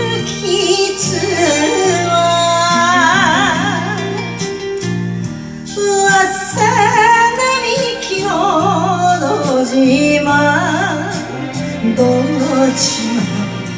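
A woman singing an enka song into a karaoke microphone, holding long notes with heavy vibrato over a recorded backing track.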